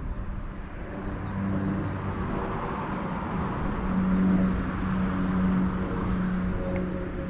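Road traffic: a motor vehicle passes, its tyre and engine noise swelling toward the middle and easing off, over a steady low engine hum.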